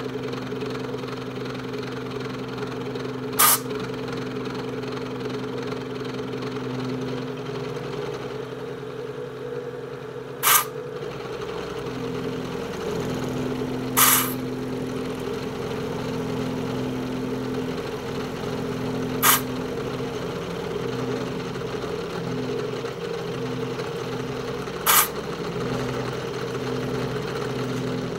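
Precision Matthews PM-727 milling machine running steadily as a 3/4-inch end mill takes a finishing cut in aluminium, cleaning up the sides to final dimension. Five short blasts of compressed air from a blow gun clearing chips cut through the hum, about 3, 10, 14, 19 and 25 seconds in.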